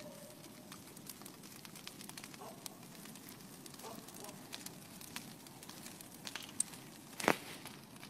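Brush-pile bonfire of dry branches crackling and popping, with one loud sharp pop near the end.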